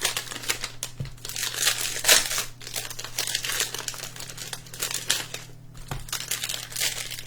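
Panini Mosaic trading-card pack wrappers crinkling and tearing as packs are torn open by hand: a dense, irregular run of crackles, over a steady low hum.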